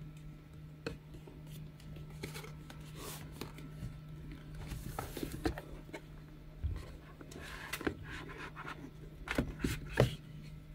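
Cardboard packaging being handled: a box and its lid slide and rub, with light taps and clicks, and two sharper knocks near the end. A steady low hum sits underneath.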